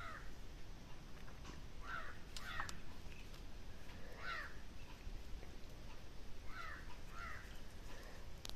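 Crows cawing, a string of short calls every second or two, with a sharp click near the end.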